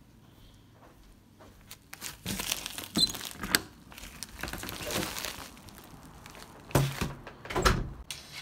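Plastic mail pouch crinkling and rustling as it is carried, with a sliding glass door being opened, then two sharp thuds near the end.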